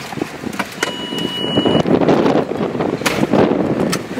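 Rushing wind and vehicle noise with frequent knocks and rustles, and a short steady high beep about a second in.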